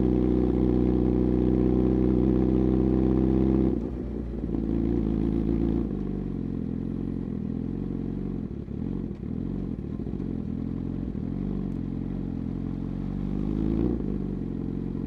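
Suzuki GSX-R1000R inline-four engine breathing through an M4 full exhaust system, held at steady revs, then the throttle closes sharply about four seconds in. From about six seconds it runs at a lower, wavering note, rising slightly near the end.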